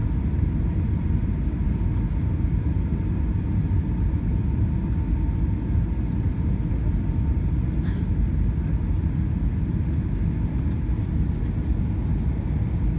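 Steady low roar of an Airbus A321 heard inside the passenger cabin during the descent to land: engine and airflow noise, with a faint steady whine in the first half.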